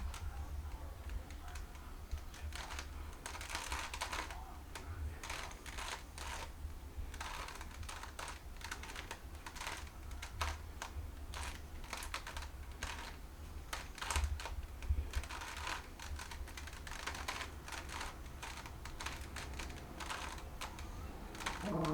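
Rubik's Cube layers being twisted by hand: a quick, irregular run of plastic clicks and rattles. The cube is stiff, which the solver calls half broken.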